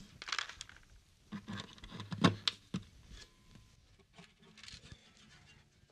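Handling noise from restringing a 12-string acoustic guitar: scattered light clicks, taps and rustles of fingers and strings on the guitar, with one sharper click a little over two seconds in.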